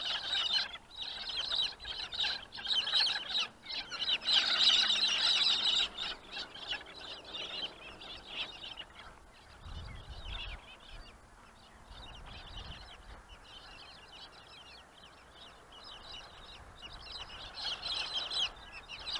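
Many wild birds chirping and calling at once, a dense chorus that is busiest over the first nine seconds, thins out, then picks up again near the end. A brief low rumble comes about ten seconds in.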